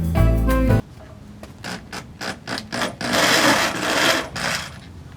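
Swing jazz music cuts off just under a second in. It is followed by a run of sharp clicks and knocks, then a harsh rasping power-drill run lasting about a second and a half, from drilling and screwing a rear diffuser into place.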